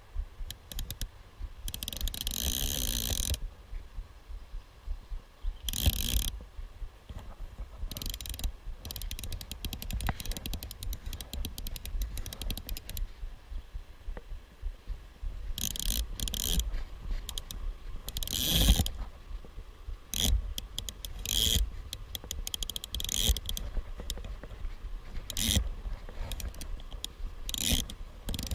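Metal fishing pincers bouncing against a GoPro's plastic case as the angler moves: irregular clicks and knocks, with a few longer rasping bursts, one about two seconds in and one past the middle.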